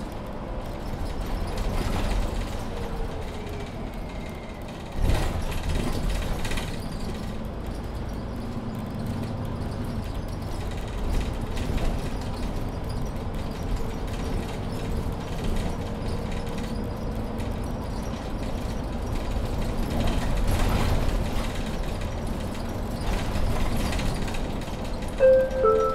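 Mercedes-Benz Citaro C2 Ü hybrid bus with Voith automatic gearbox, heard from inside while driving: engine and drivetrain running with rattles, a thump about five seconds in and a faint whine midway. Near the end a falling two-note chime sounds, the gong ahead of the next-stop announcement.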